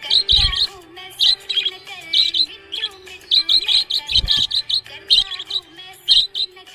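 Budgerigar chirping in many quick, short calls over background music with a wavering melody line. Two low thuds, about half a second in and again just after four seconds.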